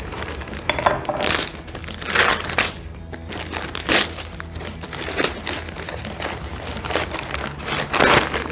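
Brown kraft paper wrapping torn and crumpled off a parcel by hand, in repeated sudden rips and crinkles, over quiet background music.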